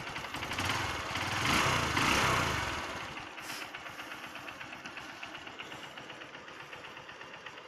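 Motorcycle engine idling on choke just after a cold start, warming up at a low idle speed; it is louder for about the first three seconds, then settles into a steady, even idle.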